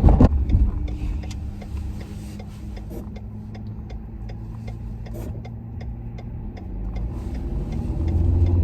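Truck cabin while driving: a steady engine and road hum, with a regular light ticking, and the hum grows louder near the end.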